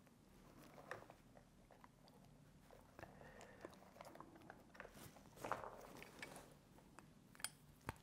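Faint rustling of thin wires and small plastic clicks as the wires are worked into a grease-filled crimp connector. There is a louder rustle a little past the middle and two sharp clicks near the end.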